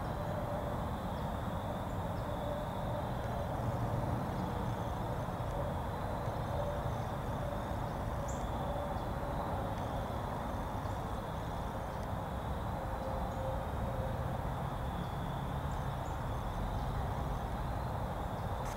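Steady woodland background noise with a faint, continuous high insect drone running through it.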